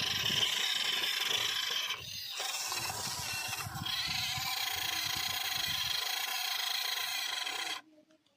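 Small electric motors and gearboxes of model tractors whirring under load as their wheels spin in the dirt during a tug-of-war pull. There is a short dip about two seconds in, and the sound stops abruptly near the end.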